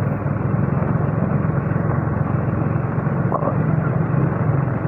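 Motor scooter's small engine running at a steady, even cruise, heard from the rider's seat, with a constant rush of road noise.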